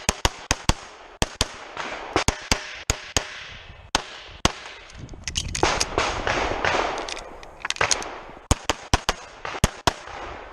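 Rapid pistol fire from a practical shooting stage: strings of shots about four a second. A pause of a few seconds in the middle is filled by a rushing noise, and the firing then resumes.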